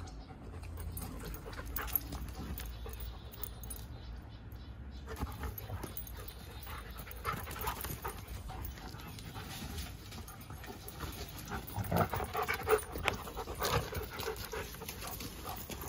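A dog panting close by, with a cluster of louder bursts of noise about three-quarters of the way through.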